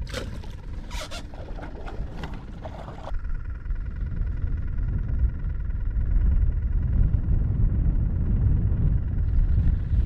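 Wind buffeting the microphone, a loud, uneven low rumble that grows stronger about six seconds in, with a few knocks and rattles of handling in the first three seconds.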